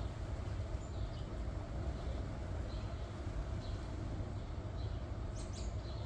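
Short, high bird chirps about once a second over a steady low rumble, with a few sharp clicks a little over five seconds in.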